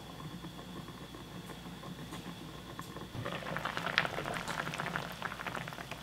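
Water boiling with chunks of Korean radish in a frying pan, at first muffled under a glass lid, then louder and crackling with many small pops once the lid is lifted about three seconds in.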